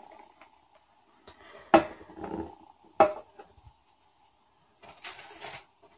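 Handling sounds as a phone is set down on its stand: two sharp knocks a little over a second apart, with light rubbing between them, then a brief rustle near the end.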